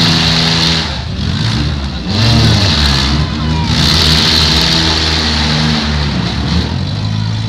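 Demolition derby compact-car engines running and revving, the pitch rising and falling. The sound dips briefly about a second in, then the revving picks up again.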